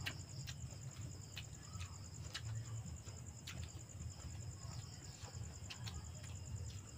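Crickets trilling steadily, with scattered soft clicks and smacks of people eating.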